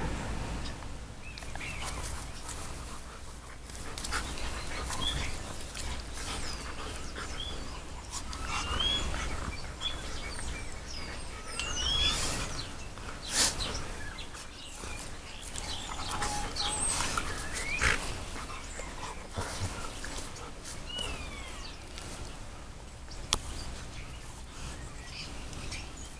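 Two white shepherd dogs play-wrestling with inhibited, gentle mouthing bites, with panting and scuffling.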